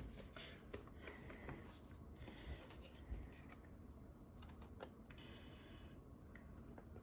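Faint handling of trading cards: a few light clicks and soft rustles as the cards are shuffled and sorted by hand.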